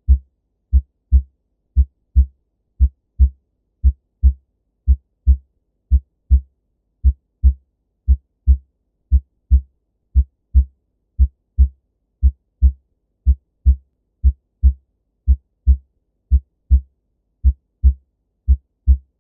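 Heart sounds through a stethoscope: a regular lub-dub, S1 followed closely by S2, about once a second. Nothing is heard between the beats.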